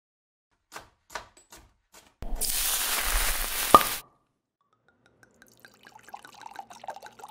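Liquid dripping a few times, then a burst of pouring liquid from about two seconds in that stops abruptly with a sharp click just before it ends. Faint scattered crackling follows.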